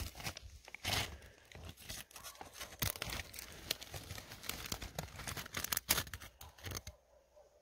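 Metal blade scraping a thin layer of ice, a run of rough, crunching scraping strokes that stop shortly before the end.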